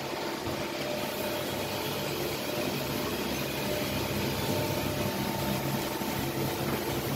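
Mass mixer running: a steady machine hum with a few constant tones over an even whirring noise.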